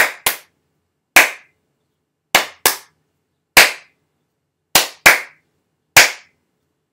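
One person's hand claps in a repeating rhythm: a quick double clap, then a single clap, with the pattern coming round about every two and a half seconds.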